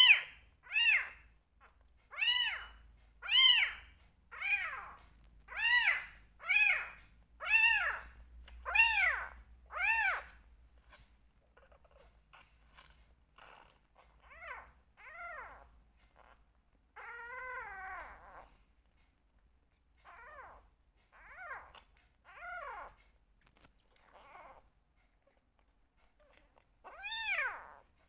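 Two young kittens meowing over and over, short rising-and-falling meows about one a second, hungry calls at bottle-feeding time. Partway through the calls grow fainter and sparser, with one longer drawn-out meow, before turning loud again near the end.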